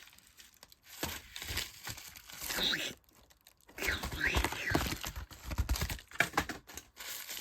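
Plastic packaging crinkling and rustling in uneven handfuls as a mailed package is unwrapped, with a pause of a second or so about halfway through.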